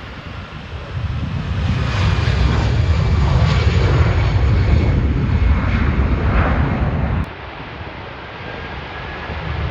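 Aircraft engines passing close by, a loud low rumble with whining tones above it. About seven seconds in the sound cuts off abruptly to a lower background noise.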